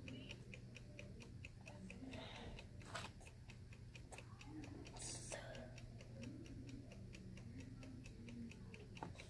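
Quiet room with a faint, fast, regular ticking, about five ticks a second, and a sharp click about three seconds in.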